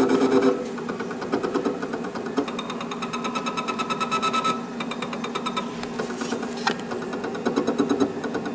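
Vinyl cutter's stepper motors whirring with a fast, even pulsing as the cutting head is jogged along to line its LED pointer up on the first registration mark for contour cutting. The motor tone changes pitch several times as the movement changes, with a sharp click a little before the end.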